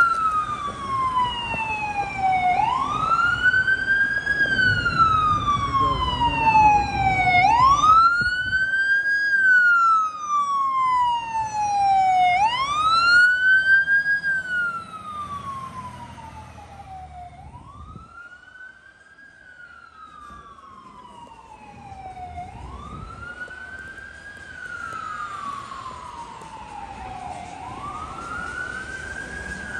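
Fire engine siren in a slow wail, each cycle climbing quickly and sliding down again, about five seconds per cycle. Loudest as the engine passes, with a low rumble beneath, then fading as it drives away.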